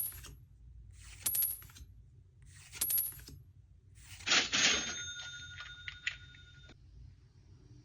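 Short metallic jingles about every second and a half, then a louder bell-like ringing with a few clicks that stops suddenly about two-thirds of the way through.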